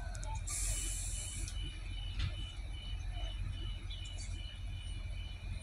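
Adelaide Metro 3000/3100-class diesel railcar standing at a station platform, its door warning beeping about three times a second for several seconds. A short hiss comes about half a second in, over a steady low rumble.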